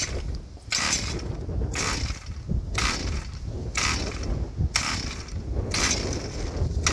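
Recoil starter rope of a 43cc two-stroke cultivator engine pulled over and over, a short whizzing rasp about once a second, about seven pulls, with the engine not catching on this cold start with the choke on. Wind rumbles on the microphone underneath.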